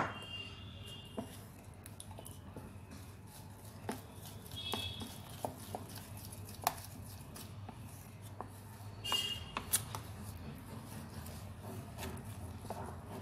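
Wooden spatula stirring runny cake batter in a plastic bowl, with scattered light taps and scrapes against the bowl's sides. A few brief high chirps come through about five and nine seconds in.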